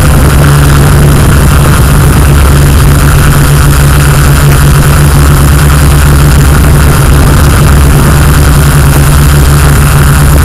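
Camera drone's electric motors and propellers running steadily in flight: a loud, unchanging hum with a strong low tone.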